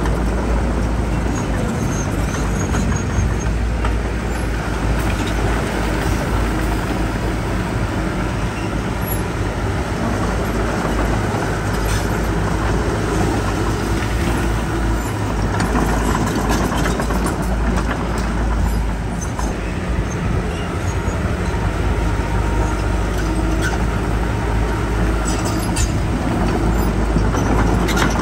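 Heavy earthmoving machinery running steadily with a deep diesel engine sound, with occasional light knocks and clanks.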